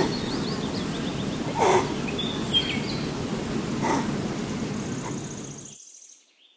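Outdoor ambience with a steady background hiss and small birds chirping. Two short, louder calls come about two and four seconds in, then the sound fades out shortly before the end.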